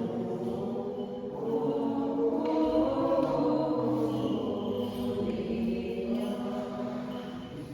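Orthodox church choir singing a slow liturgical chant, several voices holding long chords that shift every second or two.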